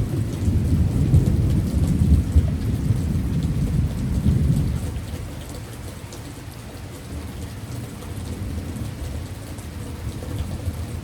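Thunder rumbling loudly over heavy rain for the first five seconds or so, then dying away to the steady hiss and patter of the downpour.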